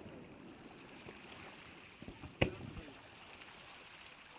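Aerial firework shells bursting: the rumble of a burst just before fades away at the start, then one sharp bang about halfway through with a short echoing tail.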